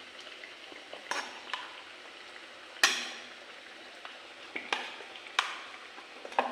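A metal spoon clinking and scraping against a stainless steel pot while lifting syrup-soaked pieces out, a handful of sharp clinks at uneven intervals, the loudest about three seconds in, over a faint steady hiss.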